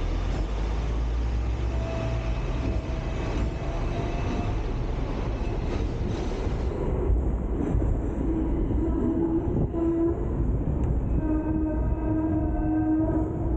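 Hong Kong double-decker electric tram running along street track, heard from on board: a steady low rumble of wheels on the rails. In the second half a steady electric humming tone from the running gear joins in.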